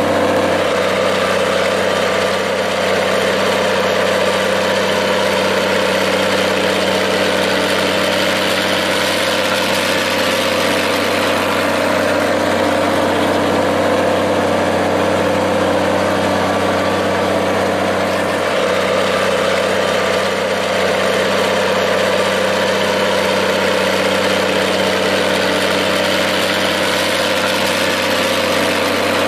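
Minneapolis-Moline G-1350 tractor engine idling steadily at an even speed.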